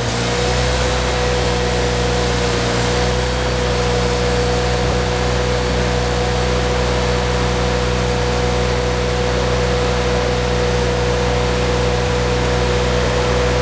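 Engine-driven welding machine running at a steady speed just after starting, with a steady hum over the engine; it runs smoothly, like a new one, despite sitting unused for a while.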